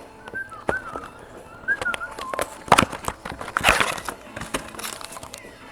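Trading card packaging and cards being handled: irregular sharp clicks and crinkles, loudest nearly three seconds in and again nearly four seconds in. A few faint short chirping tones come in the first couple of seconds.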